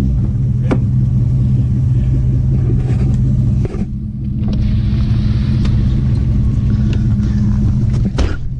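Jeep Grand Cherokee WJ's 4.7-litre V8 running through Flowmaster 40 Series and Super 10 mufflers, a steady deep exhaust drone while driving in mud. The drone dips briefly about four seconds in, then picks up again.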